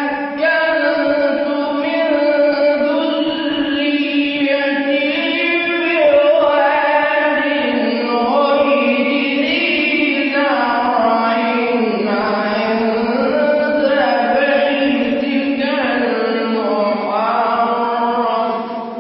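A young man reciting Quran verses in a melodic, unaccompanied voice, holding long notes that slide up and down in pitch, with no added audio effects.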